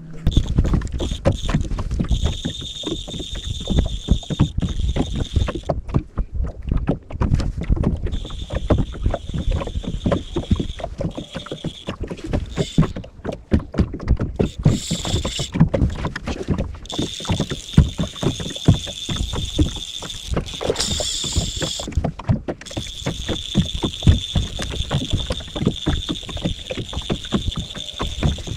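Small boat on choppy water: waves slap the hull in quick irregular knocks and splashes, and wind buffets the microphone. A steady high-pitched whine comes and goes throughout.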